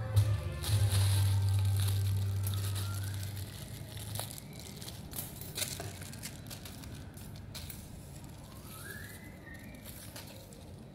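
The end of a background music track, a low held note fading out over the first few seconds, followed by faint crinkling of a thin plastic bag and light clicks as a kitten plays with it.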